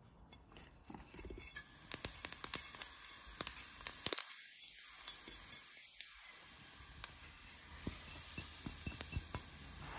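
Cumin seeds sizzling in hot melted ghee in a frying pan, a steady hiss with many sharp irregular crackles and pops, starting about a second and a half in. It is the sign that the fat is hot enough to temper the spices for a tarka.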